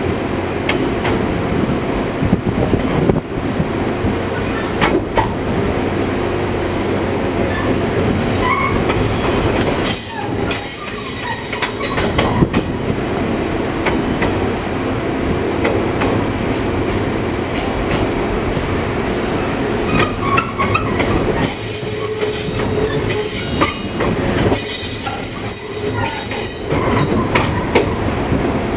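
JR 115-series electric multiple unit running, its MT54 traction motors growling over continuous wheel-on-rail noise, with clicks of rail joints. Stretches of high hissing or squealing from the wheels come and go, about ten seconds in and again after twenty seconds.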